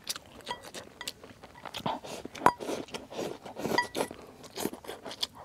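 Close-up eating sounds of a person chewing mouthfuls of rice, picked up by a clip-on microphone, with irregular light clicks of chopsticks against the rice bowl, a few of them ringing briefly.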